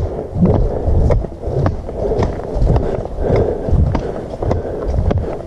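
Footsteps on a gravel trail covered with fallen leaves, a steady thump about twice a second, with sharp clicks and rumbling handling noise from the camera carried along.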